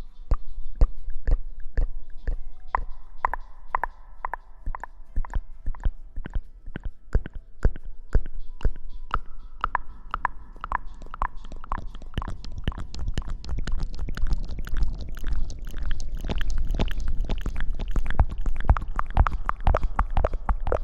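Close-miked ASMR rustling: a dense run of sharp, irregular crackles and scratches over a low rumble, growing thicker and louder in the second half. Faint steady tones run underneath.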